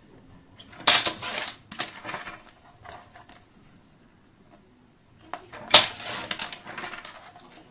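Sheets of paper or card being handled: two short rustling bursts about five seconds apart, each starting with a sharp click.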